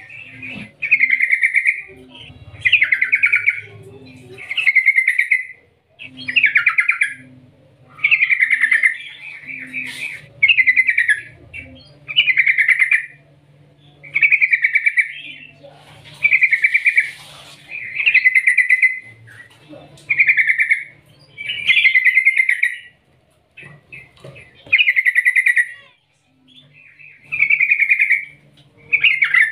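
Yellow-vented bulbul singing in full voice: a long run of loud, bubbly trilled phrases, each about a second long, repeated with short gaps about every second and a half.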